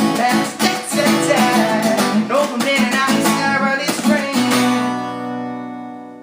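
Acoustic guitar strummed to close the song, with a wordless vocal line over it. About four and a half seconds in, a final chord is struck and left to ring, fading out as the song ends.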